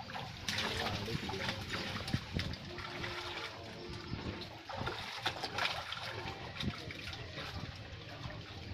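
Muddy pond water sloshing and splashing irregularly as a man wades chest-deep and gropes along the bottom with his hands, with small trickles of water.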